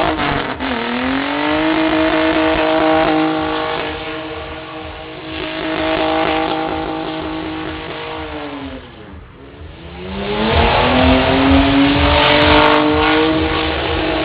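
BMW car doing a burnout: the engine is held at high revs while the rear tyres spin. The revs dip briefly about a second in, fall away around nine seconds in, then climb back up and hold high again.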